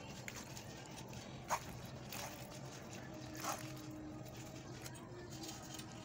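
Cooked macaroni being tipped from a pan into a glass bowl: a few soft taps and scrapes over a low steady hum.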